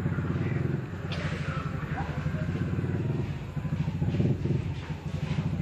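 A small engine running with a fast, even chugging pulse.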